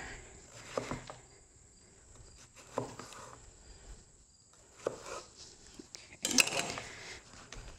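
Chef's knife cutting summer squash on a wooden cutting board: a few spaced single cuts, each a knock of the blade through the squash onto the wood, then a louder quick run of strokes about six seconds in.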